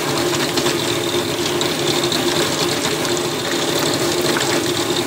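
Red Lion electric cement mixer running, its drum tumbling lumps of hickory charcoal: a steady motor hum under a constant rattling clatter of charcoal pieces knocking together and against the steel drum.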